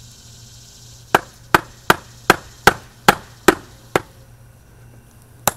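A hammer taps the handle of a flathead screwdriver, driving its blade into the thin metal lid of a sealed ammo tin (a "spam can") to cut it open. Eight sharp taps start about a second in, at two to three a second, and one more comes near the end.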